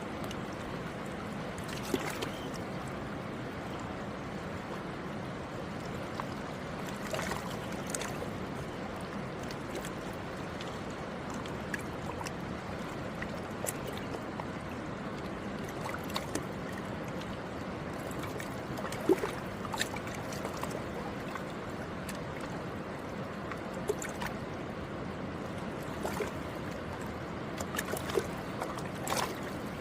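Alaknanda river flowing in a steady rush past the bank, with a few short, sharp splashes or clicks standing out now and then.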